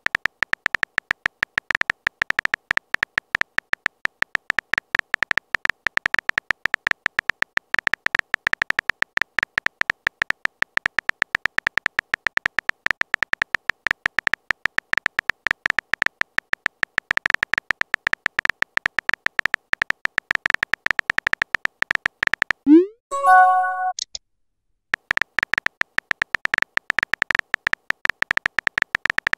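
A rapid, even stream of keyboard tap clicks from a texting app as a message is typed out letter by letter. About 23 seconds in the clicking stops for a short rising swoosh and chime as the message is sent, then the clicking starts again.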